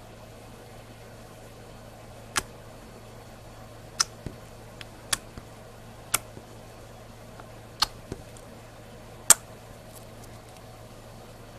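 Sharp clicks or pops at irregular intervals, about eight in all, the loudest about nine seconds in, over a steady low hum.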